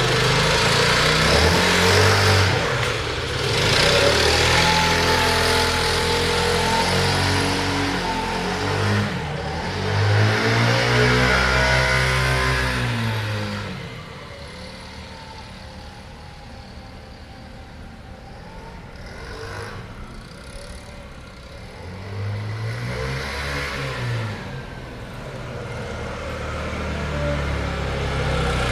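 A Tao Tao Evo scooter's engine being ridden, its pitch rising and falling as the throttle opens and closes several times. It is loud for the first half, then much fainter, with one more rise and fall near the end.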